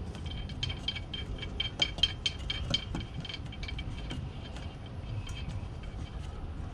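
Light metallic clicking and clinking as the oil drain plug is worked back into the generator's oil pan, with a quick run of clicks about one and a half to three seconds in, then sparser clicks.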